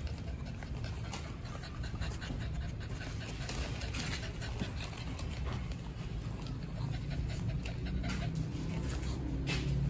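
Shih Tzu dogs panting, with scattered small ticks throughout.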